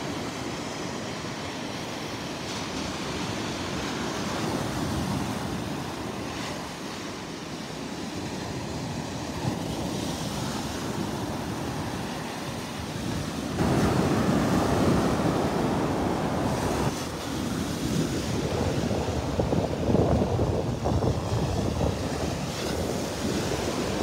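Small Gulf of Mexico waves breaking and washing up a sandy beach, with wind on the microphone. The sound gets suddenly louder a little past halfway through.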